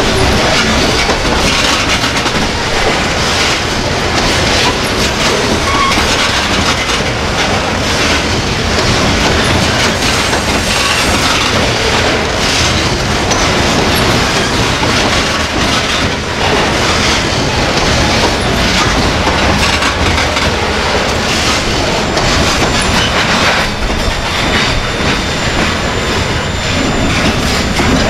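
Freight train's covered grain hopper cars rolling past close by: a steady loud rush of steel wheels on rail, with repeated clicks as the wheels cross the rail joints.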